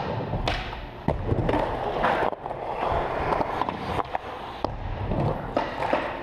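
Skateboard wheels rolling over the ramps of an indoor park, with several sharp clacks as the board pops and lands.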